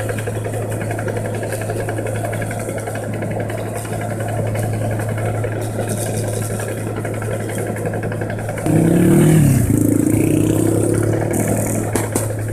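Combine harvester's diesel engine running steadily under load with a deep, even hum. About nine seconds in, a louder pitched tone joins, dipping in pitch and then holding level for about three seconds before fading.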